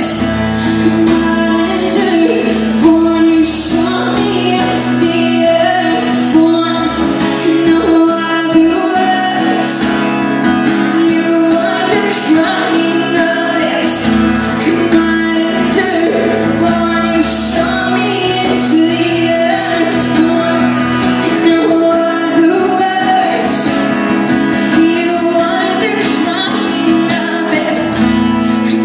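Music: a song performed live, with a woman singing over instrumental backing.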